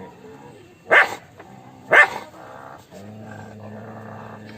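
A dog barking twice, single sharp barks about a second apart. A low steady hum comes in about three seconds in.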